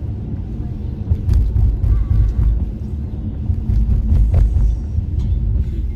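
Steady low rumble of a car driving, with a few faint knocks.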